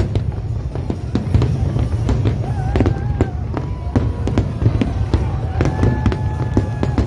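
Aerial fireworks bursting: a dense, continuous run of overlapping bangs and crackle over a steady low rumble.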